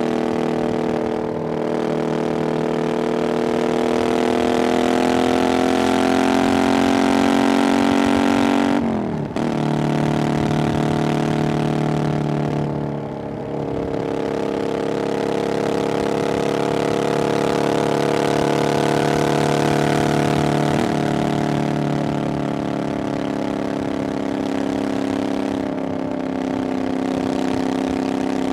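Triumph Bonneville Scrambler 900's 900cc parallel-twin engine running through an aftermarket exhaust on the move. Its note climbs slowly for about eight seconds, breaks off and drops about nine seconds in, dips briefly again near thirteen seconds, then holds a steady cruise that eases down near the end.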